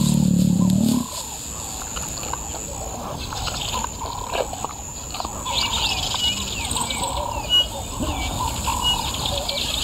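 Savanna ambience: birds chirping and calling over and over, with a steady high insect buzz underneath. A low rumble cuts off about a second in.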